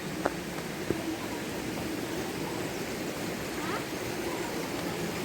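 Steady rush of flowing water from a stream or waterfall, with two faint clicks in the first second.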